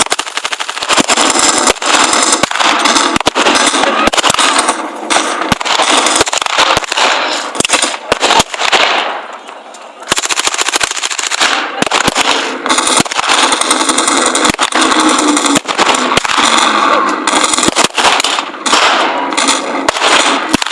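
Staged machine-gun fire in rapid, almost continuous bursts, with a short lull about halfway through.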